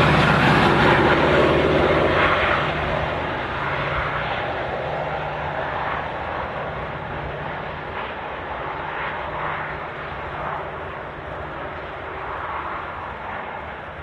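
A Metra diesel locomotive passes at speed with its engine running, and the sound of the engine and the train fades steadily as the train moves away.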